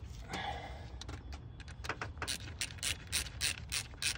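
Socket ratchet wrench clicking as a radiator hose clamp is tightened. A regular run of about four clicks a second starts about two seconds in.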